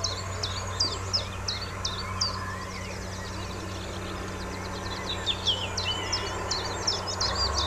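Small songbirds chirping in quick, sharp repeated notes, thinning out briefly mid-way, over a steady low drone from the distant diesel locomotive of a narrow-gauge peat railway train.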